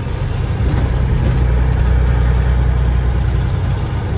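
Caterpillar 3406E straight-six diesel in a Freightliner FLD120 tractor running steadily, heard from inside the cab as the truck drives slowly.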